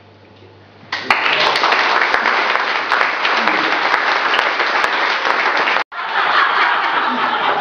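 A small audience applauding, breaking out suddenly about a second in after a moment of quiet room hum. The clapping stays loud and cuts out for an instant near the end before carrying on.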